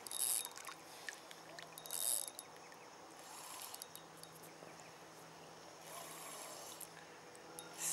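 A spinning reel being wound in short spurts with pauses, a faint hissy whirr about four times over: the start-and-stop retrieve of a surface lure.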